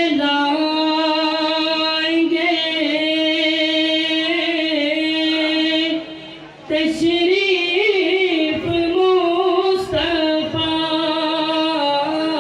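A man singing a naat solo into a microphone, drawing out long held notes with melodic ornaments and breaking off briefly about six seconds in.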